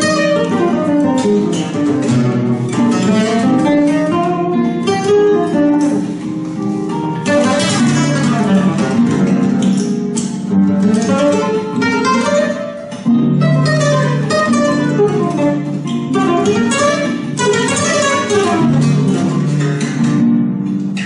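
Flamenco guitar music: quick runs of plucked notes and arpeggios over held bass notes.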